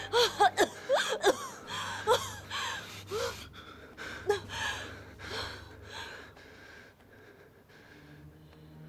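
A woman gasping and whimpering in short, shaky breaths as she shivers with a chill. The breaths come quickly at first, then grow fainter and farther apart until they die away about seven seconds in.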